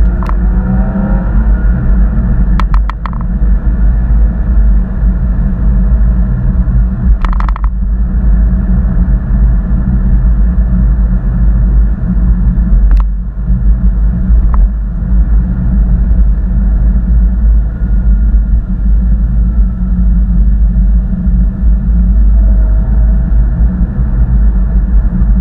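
Steady low rumble and buzz from a 2013 Porsche Boxster's flat-six under way, heavily overlaid by the 'helicopter' ticking noise that a GoPro Hero 4 Black makes when its Wi-Fi remote is switched on. A few short clicks break through.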